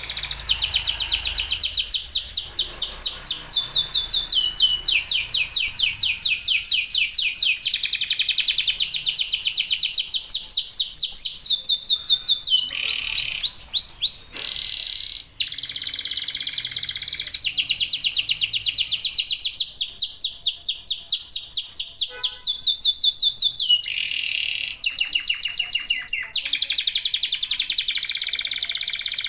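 Local Indonesian canaries singing: long, fast trills of rapidly repeated high notes, switching from one trill pattern to another every few seconds, with short breaks about fourteen and twenty-five seconds in.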